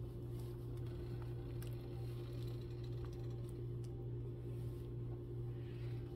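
Steady low mechanical hum, with a few faint light clicks and taps over it.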